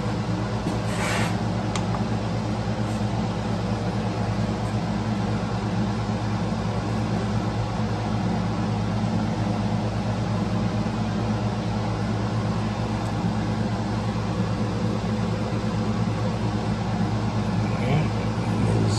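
Steady low machine hum, like a fan or blower running in the shop, with a brief rustle or scrape about a second in.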